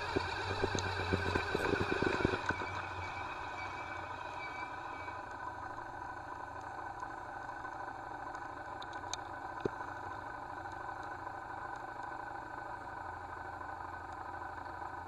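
1991 Yamaha XV250 Virago's air-cooled V-twin engine, louder with a rattle for the first couple of seconds, then settling to a steady low idle. A faint high tone fades out about five seconds in.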